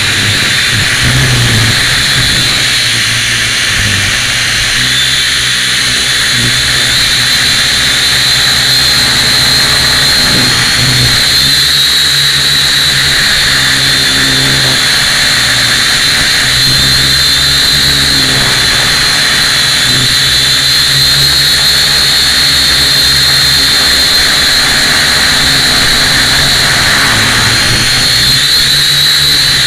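Syma X1 quadcopter's four small brushed motors and propellers whining steadily in flight, the pitch wavering slightly with throttle, heard up close from a camera mounted on the craft, with uneven low rumbling under the whine.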